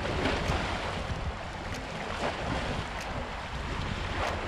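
Small waves lapping and splashing against a rocky shoreline, a splash every second or so, with wind rumbling on the microphone.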